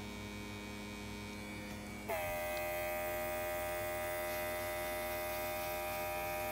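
A small electric motor hums steadily. About two seconds in, its sound changes with a short slide in pitch to a louder, higher whine of several steady tones.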